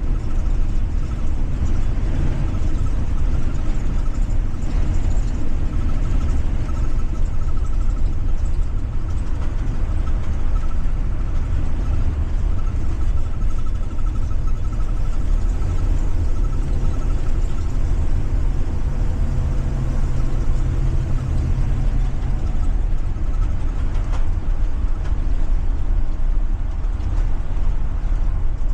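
Ford 7.3 L gasoline V8 of a Blue Bird Vision school bus under way, heard from the driver's seat: a steady low rumble of engine and road noise.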